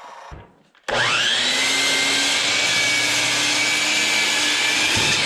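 DeWalt compound miter saw switched on about a second in. Its motor spins up fast to a steady high whine and it cuts a pine board, then starts to wind down at the very end.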